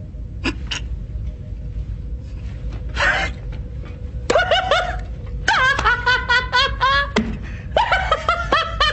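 A man laughing: a short breathy chuckle about three seconds in, then loud, repeated peals of laughter from about four seconds in, over a faint steady hum.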